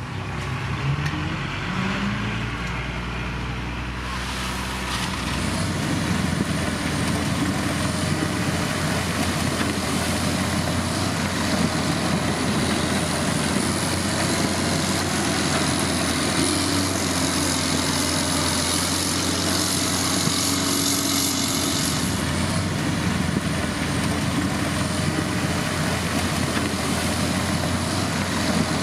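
Diesel engine of heavy road-building machinery running steadily, with a rising rev about a second in and a thin high whine over it from about five seconds in.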